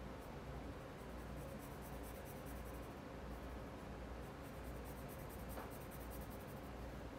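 Colored pencil shading on paper: faint, rapid back-and-forth strokes in two spells with a short pause between them.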